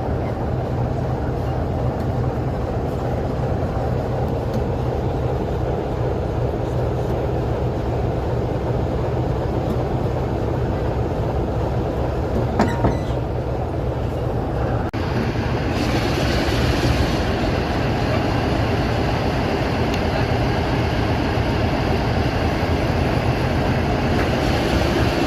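Train running with a steady low mechanical hum and rail noise; about fifteen seconds in, a louder hiss of higher-pitched running noise joins and carries on.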